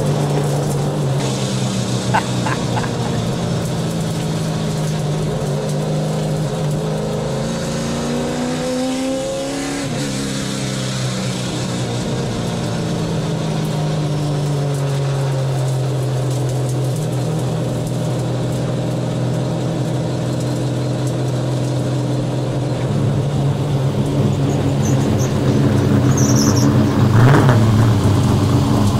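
Late model stock car's V8 engine running at speed. Its revs climb for a few seconds, drop sharply about ten seconds in, then settle to a steady note and build again, louder near the end.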